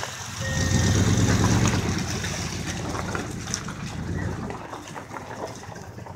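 Engine and dual exhaust of a lifted 1998 Chevy Silverado Z71 pickup, a low pulsing rumble that swells about half a second in and eases off in the last second and a half.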